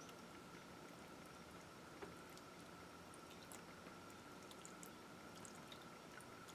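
Faint pouring and dripping of liquid dye from a cup onto a sopping-wet spiral-tied T-shirt on a wire rack, over a faint steady high hum, with a small tick about two seconds in.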